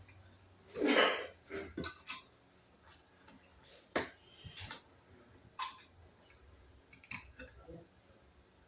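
Electrical box hardware and hand tools being handled: scattered clicks and taps, with a short scraping noise about a second in.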